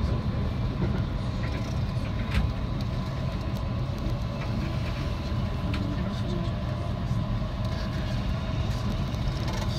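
Cabin running noise of a JR West 323 series electric train in motion, heard from inside the cab motor car: a steady low rumble of wheels on rail with a faint, steady whining tone over it.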